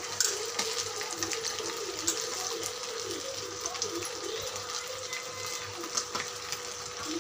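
Tamarind fish curry simmering and bubbling in a clay pot on a gas burner, with small irregular plops and splutters as raw anchovies are added.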